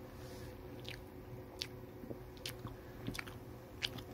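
A person biting into and chewing a bacon cheeseburger with the mouth close to the microphone: faint, wet mouth clicks and smacks, irregular, a few a second.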